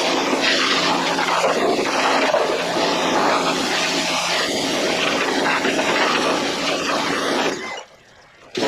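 Pressure washer running, with a steady motor and pump hum under the loud hiss of the water jet spraying a muddy Jeep frame. The sound cuts out abruptly near the end and starts again straight after.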